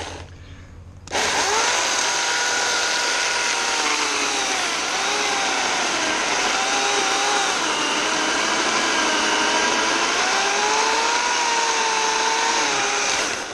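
Portland 14-inch 9-amp corded electric chainsaw starting up about a second in and cutting through a log. Its motor whine dips and recovers in pitch as the chain loads up in the wood, then it shuts off at the end.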